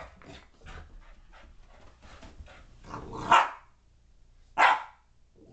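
Boxer puppy barking: two loud single barks, about three seconds in and again just over a second later, after a run of softer short sounds.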